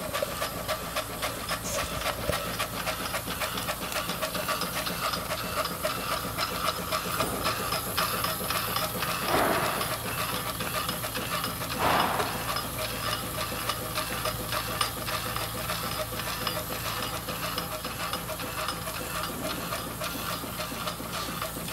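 Quarter-scale model 1915 Case steam traction engine running under steam: steady hissing over a fast mechanical ticking, with two louder surges of hissing steam about nine and twelve seconds in.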